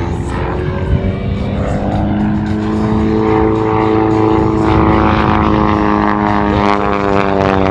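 Pitts S1S aerobatic biplane's piston engine and propeller droning in flight, rising a little in pitch over the first few seconds, then holding steady while growing gradually louder.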